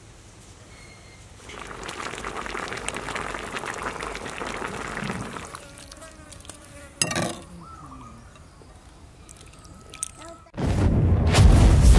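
Liquid sauce being poured over a whole steamed fish, a trickling, splashing pour lasting a few seconds, followed by a single sharp knock. Near the end a sudden loud boom opens intro music.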